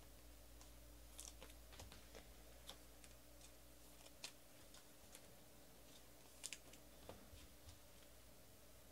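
Near silence with faint, scattered clicks and light taps of trading cards being handled on a table, a few of them a little sharper.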